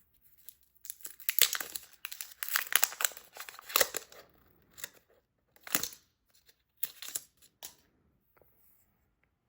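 Packaging seal being torn off an Apple Pencil Pro box: a dense run of tearing and crinkling for about three seconds, then a few shorter tearing rustles.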